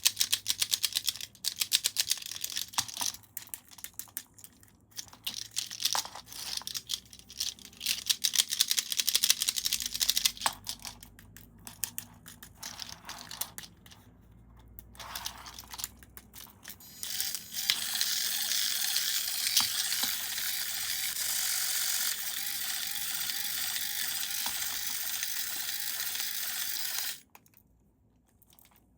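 Irregular clicking and rustling of toy parts and packaging being handled, then a small electric toy motor and gears running steadily for about ten seconds before cutting off suddenly.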